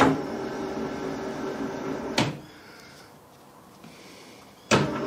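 Three sharp clicks or knocks about two and a half seconds apart; a steady machine hum sounds after the first and the last of them, with a quieter stretch in between.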